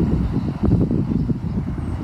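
Water rushing over a small stone weir, a loud, deep, uneven churning.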